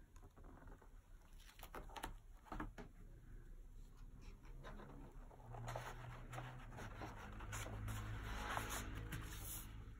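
Paper rustling and light knocks as the cover and pages of a spiral-bound album are turned by hand, busier in the second half.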